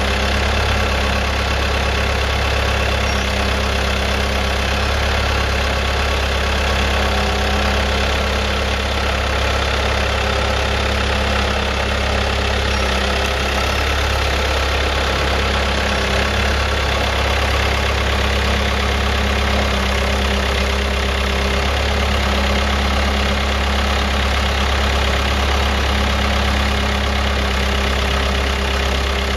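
Willmar 765 self-propelled sprayer's engine idling steadily, a deep even running note that does not change.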